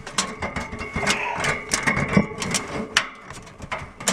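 Handling noise: a fast, irregular run of clicks, knocks and light rattles as a camera is set down and a steel tape measure is worked.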